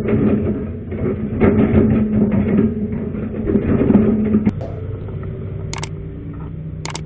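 Hitachi excavator's diesel engine working, with clattering and clanking of metal, settling to a quieter, steadier run a little past halfway.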